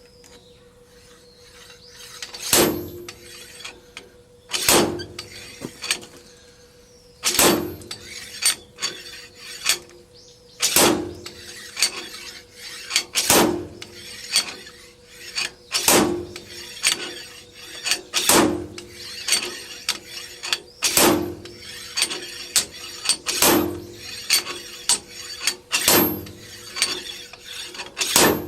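Hammer blows on metal, one hard strike about every two and a half seconds after the first couple of seconds, each ringing briefly, with lighter taps and clinks between.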